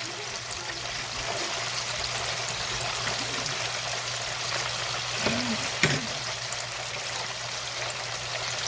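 Chicken wings deep-frying in hot oil: a steady sizzling hiss, with a couple of light knocks a little past five seconds in.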